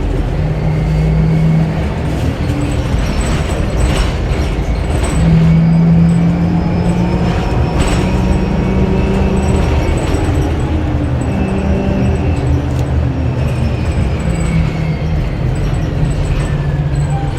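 Inside a 2009 Orion VII Next Generation hybrid bus under way: its Cummins ISB diesel and BAE Systems HybriDrive electric drive run steadily under a low drone, with a whine that rises in pitch and then falls away through the middle. A couple of sharp knocks sound about four and eight seconds in.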